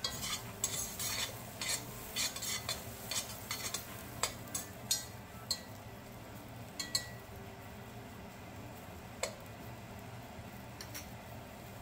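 A utensil clinking and scraping against a hot pan while stirring mushrooms frying in butter and oil, over a steady sizzle. The stirring clicks come quickly for the first five seconds or so, then only now and then.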